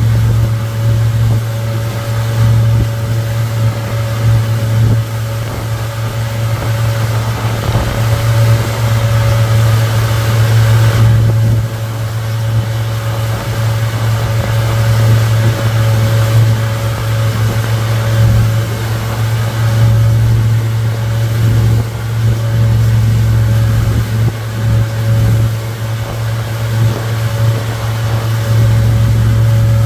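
Suzuki 150 hp four-stroke outboard motor running steadily at speed under the load of towing a banana boat, with water rushing in the wake and wind on the microphone.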